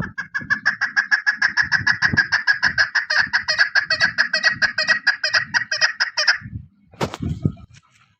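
Female chukar partridge calling: a rapid, even series of short notes, about six a second, that stops about six seconds in. A sharp click follows near the end.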